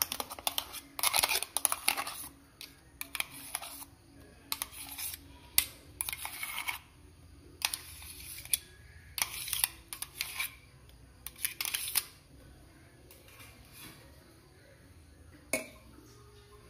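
Steel spoon scraping and clinking against a stainless steel mixer jar, scooping thick banana paste out into a steel pot of batter: a quick run of short scrapes and taps for about twelve seconds, then one more clink near the end.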